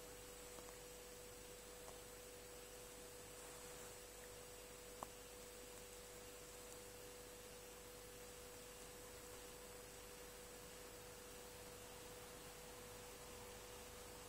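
Near silence: room tone with a faint steady hum at a single pitch and one soft click about five seconds in.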